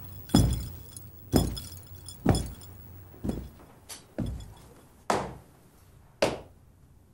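Heavy, slow footsteps thudding about once a second, each with a booming echo. A faint glassy chinking rides on the first few.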